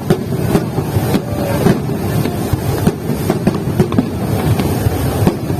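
Fireworks display: a dense, continuous barrage of bangs and crackles, several a second, over a steady low rumble.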